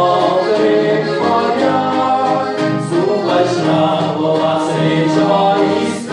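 Live band music: accordion, acoustic guitar and bass guitar, with several male voices singing together in harmony. The loudness dips briefly near the end.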